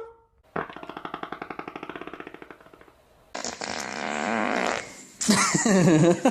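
A person farting: one long, rapidly fluttering fart lasting about two and a half seconds and fading out toward its end. It is followed by a hissing stretch and then a louder, higher, wavering sound near the end.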